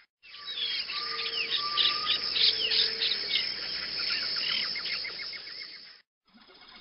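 Birds chirping and calling, with insect trilling underneath and a few long, steady whistled notes in the first three seconds. The sound drops out briefly at the start and again about six seconds in.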